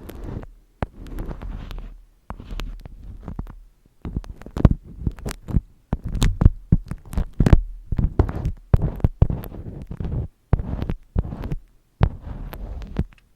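Close-miked ASMR handling sounds: irregular taps and crackly bursts in clusters, with deep thumps underneath.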